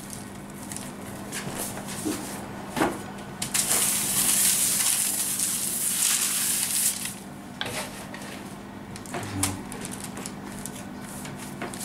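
Hands rubbing and sweeping flour across a sheet of baking paper: paper rustling and scraping, with a long stretch of loud swishing in the middle and scattered small taps.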